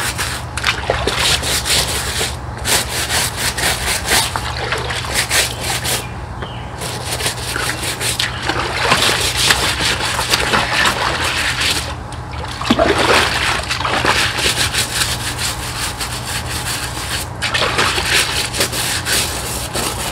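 Hand scrubbing of algae off a rubber koi-pond liner, in repeated rasping strokes, with water splashing and sloshing around the legs of someone wading. A steady low hum runs underneath.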